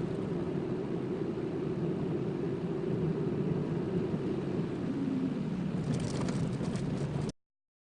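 A car being driven, heard from inside: steady engine and road rumble with a few short clicks near the end. The sound cuts off suddenly about seven seconds in.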